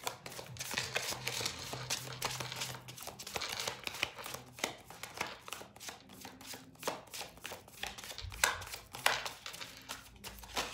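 A deck of tarot cards shuffled by hand: a quick, uneven run of card slaps and rustling, with a couple of sharper slaps near the end.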